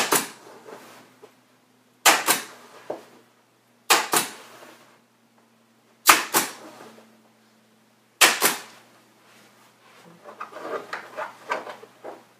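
Pneumatic staple gun firing five times, about every two seconds, each shot a sharp double crack as it drives a staple through the table grid fabric into the table's plywood edge.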